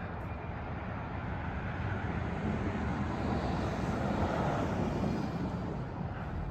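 A motor vehicle passing, a rushing noise that swells to its loudest about four seconds in and then fades.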